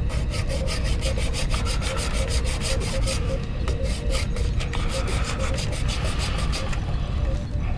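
Fine-toothed razor saw cutting through a small hobby-kit part by hand, in quick, even back-and-forth strokes, several a second.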